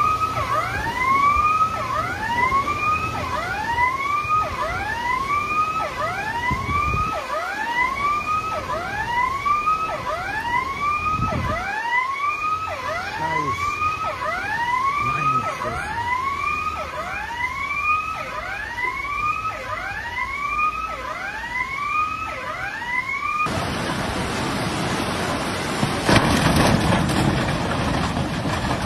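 A siren wailing in repeated sweeps that rise and fall in pitch, about one a second. About three-quarters of the way through it cuts to the steady rush of fast-flowing floodwater.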